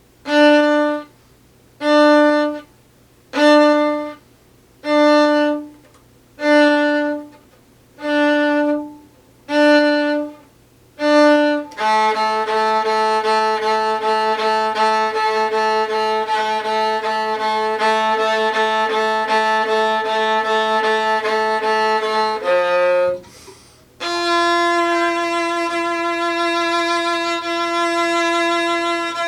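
Viola playing eight separate notes on one repeated pitch, about one and a half seconds apart. About twelve seconds in, a fuller string passage with several pitches sounding at once and a quick pulse begins. After a few short notes and a brief pause, a long held note follows near the end.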